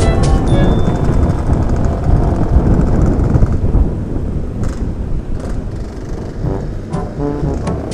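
Several motorcycles riding together in a pack, their engines and exhausts running loud, easing off about four seconds in.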